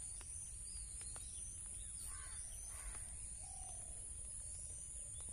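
A crow cawing twice, about two and three seconds in, over faint chirps of small birds and a steady low background rumble.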